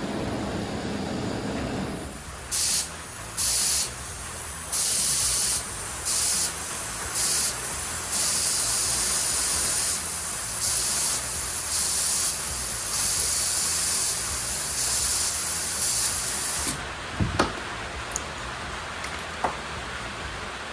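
Compressed air hissing in about a dozen bursts of varying length, short at first and then longer, as it is fed into a sealed, heated two-stroke expansion chamber to push out a dent. A steady lower rushing sound stops about two seconds in, before the air starts, and a few faint clicks follow near the end.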